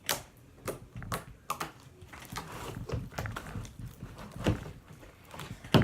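Scattered knocks, clicks and rustles of people shifting about and handling things, with a louder thump about four and a half seconds in and another near the end.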